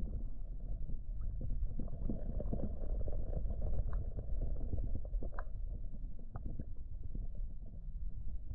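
Flowing creek water heard through an underwater camera: a steady, muffled, low rush of current with a few faint clicks scattered through it.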